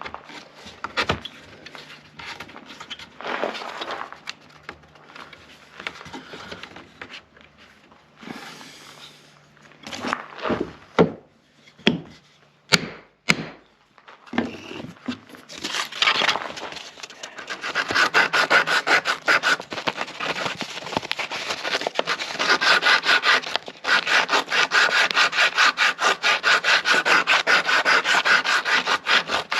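A hand tool worked against wood: irregular scraping strokes and a few sharp knocks in the first half, then from about halfway a steady run of quick back-and-forth strokes, like fine sawing or filing of a wooden comb blank.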